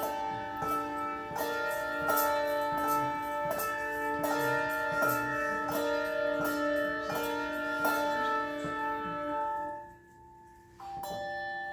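Handbell choir playing a tune: struck bell notes in a steady rhythm, ringing on and overlapping. About ten seconds in the bells die away almost to quiet, then a new note rings out.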